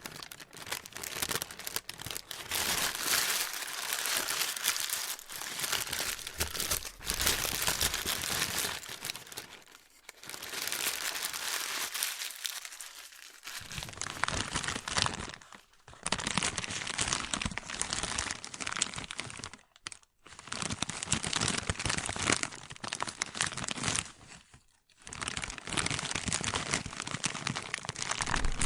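Plastic being crinkled and crumpled by hand: a dense, crackly rustle in bouts of a few seconds, with short pauses between them.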